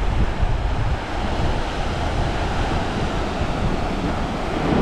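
Small waves breaking and washing up onto a sandy beach, with wind buffeting the microphone.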